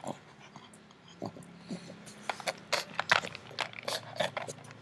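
Claws of a pug and a small dog clicking and tapping on a tiled floor as they move about: irregular sharp clicks, coming thicker in the second half.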